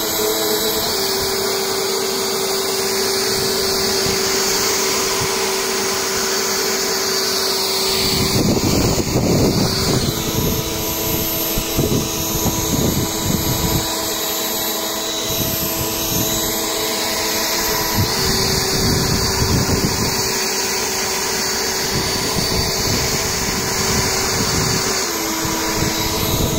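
Leaf blower running steadily, its motor pitch stepping between two speeds a few times. Gusts of low rushing air come and go as the blast hits the leaves.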